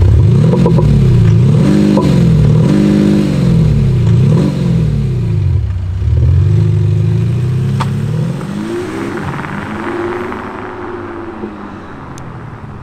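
Skoda Octavia RS 2.0 TDI four-cylinder diesel revved several times at standstill, with an exhaust sound generator (Cete Active Sound Unit, sound file 8 in active sound mode at about 60% volume) adding a synthetic engine note that rises and falls with each rev. After about six seconds the revs turn lower and gentler and the sound grows quieter as the car moves off.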